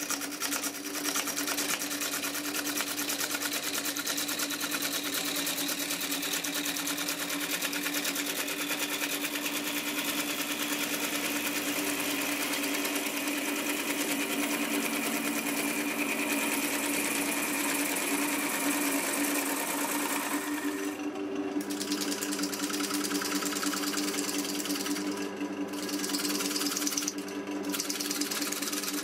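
Gouge cutting a spinning lime (linden) wood blank on a wood lathe: a fast rhythmic hissing cut over the steady hum of the lathe motor. The cutting noise breaks off briefly three times near the end while the lathe keeps running.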